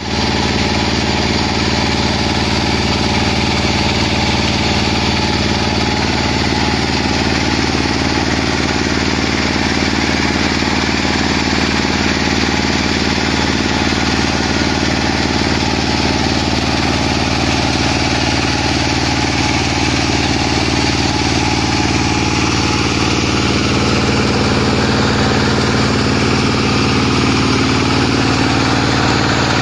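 Engine of a water well drilling rig running steadily, its pitch shifting slightly in the last few seconds.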